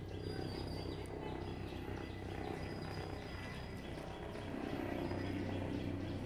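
Outdoor ambience: a steady low hum with a few faint, high bird chirps and small scattered ticks.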